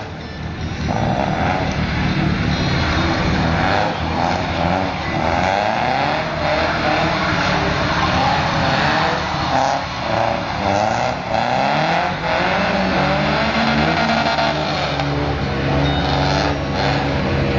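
Opel Manta's engine revving hard, its pitch climbing and falling again and again as the car is driven in a drift, with tyres squealing over it.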